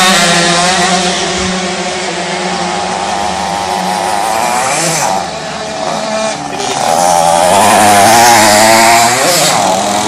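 Racing Solex mopeds' small two-stroke engines buzzing, several at once at differing, wavering pitches. The sound grows louder for a couple of seconds near the end as one passes close.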